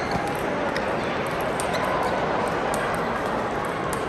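Steady background noise of a busy table tennis hall, with a few faint, sharp clicks of ping-pong balls striking tables and paddles.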